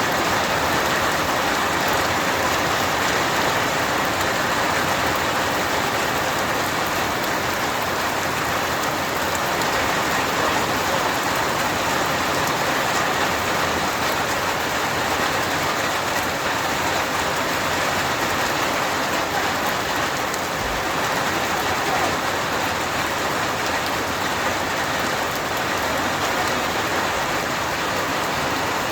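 Steady, dense rain falling, an even hiss that doesn't change throughout.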